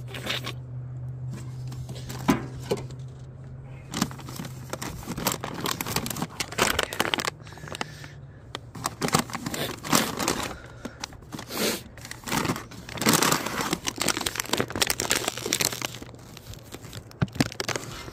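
Crinkly packaging being handled and torn open, rustling and crackling in irregular bursts over a steady low hum.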